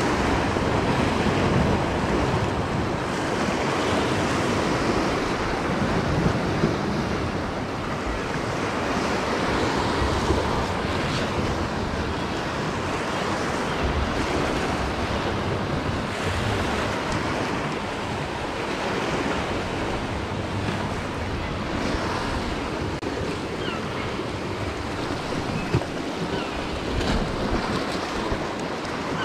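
Sea waves breaking and washing against the rocks at the foot of the cliffs, a steady rush that swells and eases, with wind buffeting the microphone. A few brief knocks stand out briefly twice.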